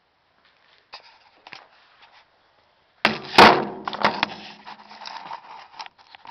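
A steel claymore blade strikes concrete about three seconds in with a sharp, loud clang and keeps ringing for a second or two, followed by a few smaller knocks. The blade does not cut through the concrete.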